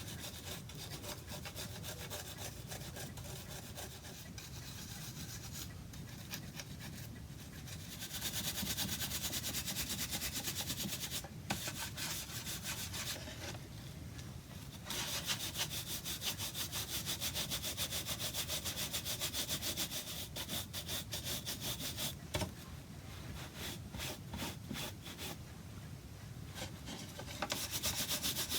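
Tinted wax polish being scrubbed into carved walnut with quick back-and-forth strokes, a steady rapid rubbing that comes in louder spells about a third of the way in, through the middle and near the end.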